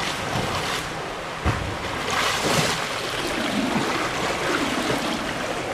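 Water splashing and churning from a swimmer doing butterfly into the wall of a pool, touching with both hands and turning onto his back: the butterfly-to-backstroke turn of an individual medley. The loudest splashing comes about two seconds in.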